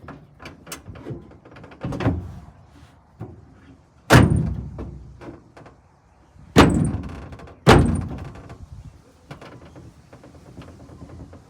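Swing-out truck toolbox being banged shut: three loud bangs, each with a ringing tail, among lighter clicks and rattles as it is worked, the lid having trouble latching.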